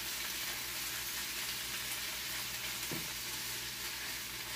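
Spinach, onions and peppers sizzling steadily in hot olive oil in a frying pan as a spatula stirs them, a light sauté.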